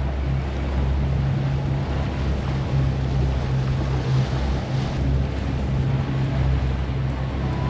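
Motorboat engine running with a steady low hum, under a constant rush of wind and water.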